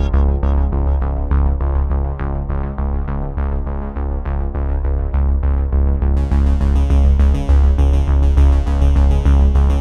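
Electronic background music: synthesizer notes over a steady pulsing bass, with a bright, shimmering high layer coming in about six seconds in.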